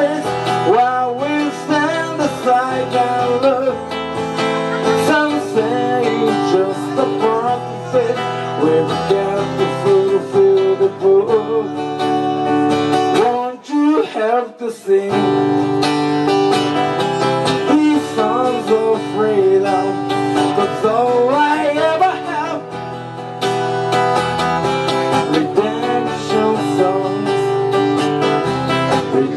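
Acoustic guitar played live, steady chords with picked melodic lines, briefly thinning out about halfway through before the playing picks up again.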